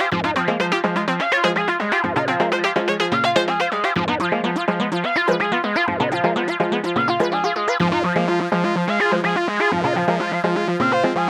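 Electronic background music: fast repeating synthesizer notes over a steady bass line.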